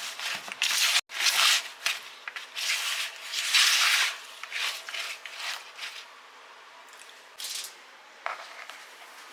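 A spoon stirring toasted crushed ramen noodles and nuts through melted white chocolate in a mixing bowl: a run of irregular scraping, crunchy strokes that grow sparse after about six seconds.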